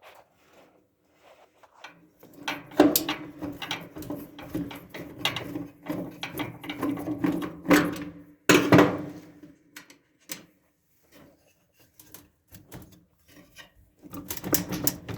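Knocking, clicking and scraping of a dryer's sheet-metal panels and a hand tool as a screw is worked out of the lower bracket plate. The sounds are irregular and busiest from about two to nine and a half seconds in, with another short flurry near the end.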